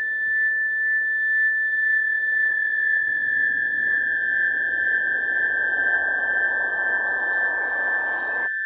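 A single sustained high electronic tone from the film's score, sinking very slightly in pitch, held over a steady hiss of ambience. The hiss swells a little in the second half, then cuts off abruptly near the end while the tone carries on.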